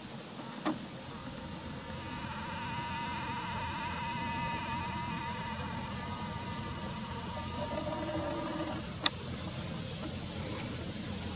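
Crickets trilling steadily in a high band. From about two and a half seconds in until about nine seconds, the Nikon Coolpix P900's lens zoom motor whirs faintly in a low even tone. There are two sharp clicks, one just under a second in and one just as the whirring stops.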